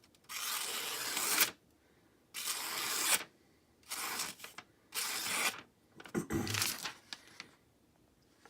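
A freshly sharpened hunting knife slicing through material in a cut test: a series of hissing cutting strokes, four long ones with short pauses between, then a few shorter ones.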